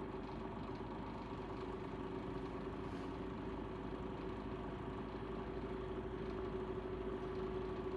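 Arvin 32H25 fan-forced electric heater running: its fan motor gives a steady hum over an even rush of air.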